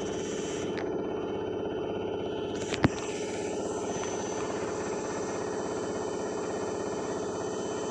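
IFB washing machine spinning its drum in the final spin cycle: a steady, even hum, with a single sharp click about three seconds in.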